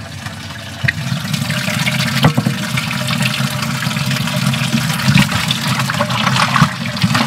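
Water rushing and splashing over the steady low running of the boat's Mercury 50 outboard motor, with a couple of knocks.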